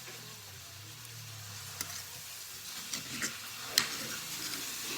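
Eating sounds: a few sharp clicks and crackles, the loudest about four seconds in, over a faint steady hiss.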